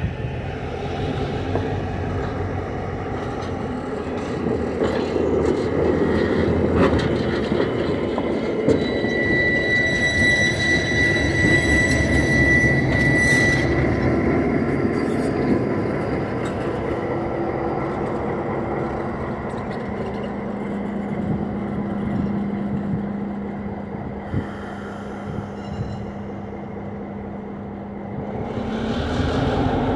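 EMD GP7 diesel-electric locomotive's 16-cylinder 567 engine running under load as it moves a heavyweight baggage car, with the car's steel wheels rumbling over the rails. A high, steady wheel squeal sounds for about four seconds partway through. Near the end the engine note rises as the engine speeds up.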